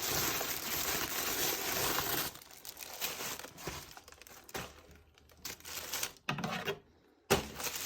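Packaging crinkling and rustling as a tote bag is unwrapped and handled: dense rustling for the first two seconds, then scattered, quieter handling sounds, with a brief dead-silent gap about seven seconds in.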